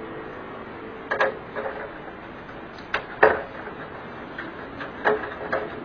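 A few light, scattered clicks and taps, about six of them, from a screwdriver and small screws being worked out of the metal frame along the edge of an LED TV panel. A faint steady hum lies beneath them.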